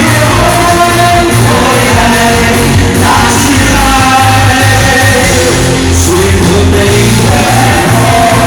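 A vocal trio singing a song over loud amplified backing music with a steady bass, sung notes held and sliding in pitch.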